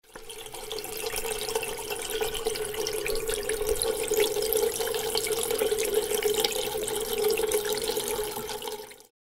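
A steady stream of liquid running and splashing, like water poured or a tap left running, building over the first second and tapering off near the end.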